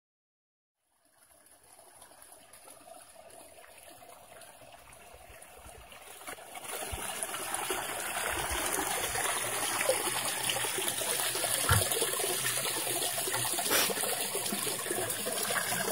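Water running and trickling from a PVC pipe into an aquaponics fish pond. It fades in after about a second of silence and gets louder about six seconds in, with a couple of brief knocks in the second half.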